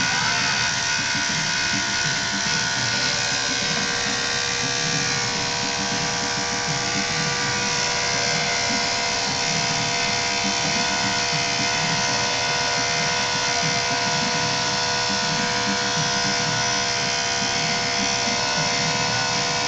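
Electric hair clippers running steadily with an even buzz as they trim a schnauzer's coat.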